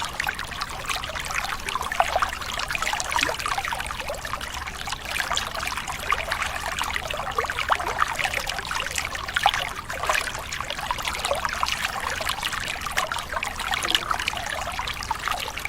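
River water flowing and babbling, a steady rush full of small irregular splashes and trickles.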